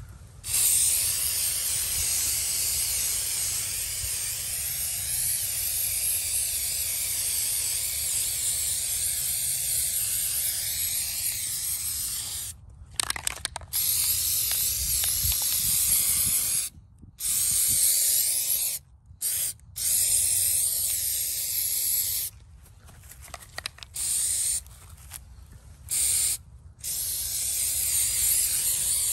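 Aerosol can of rubber coating spraying: one long continuous hiss for about twelve seconds, then a string of shorter sprays broken by brief pauses.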